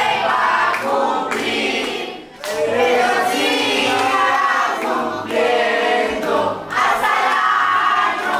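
A crowd singing together loudly, many voices in sung phrases broken by short pauses about two seconds in and again near seven seconds.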